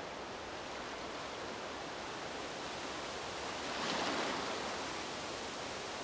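Gentle lagoon waves washing steadily, with one louder wash swelling and fading about four seconds in.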